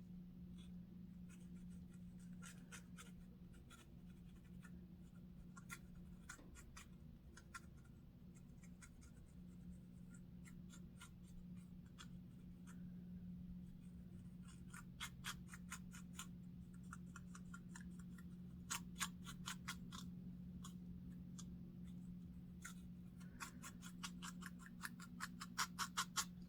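A lice comb scratching through a dry, flaky scalp, in quick runs of short scraping strokes with pauses between them; the runs are densest and loudest about halfway through and near the end. A faint steady low hum sits underneath.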